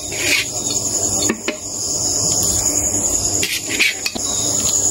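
Steady high-pitched chirring of crickets, with a few sharp knocks about a second and a half in and again near four seconds. Underneath, a pan of water is boiling on a gas stove.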